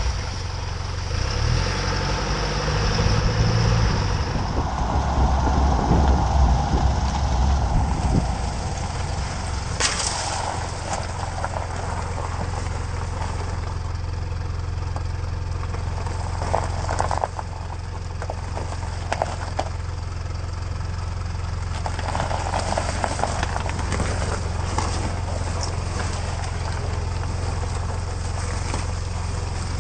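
A car's engine running at low speed, heard from just under the vehicle near its exhaust, as a steady low hum. During the first several seconds the tyres crunch over snow and slush, and a few sharp clicks come later.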